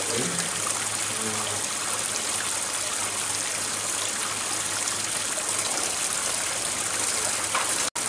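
Water jetting from a pipe outlet and splashing steadily into a pond, with a low steady hum underneath. The sound cuts out for an instant near the end.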